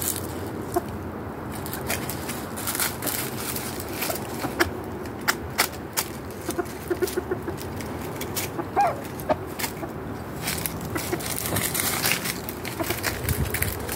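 Chickens clucking now and then, with many sharp clicks and taps scattered throughout.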